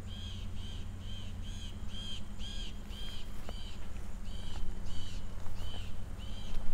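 A bird calling one short, arching note over and over, about two a second, with a brief pause partway through.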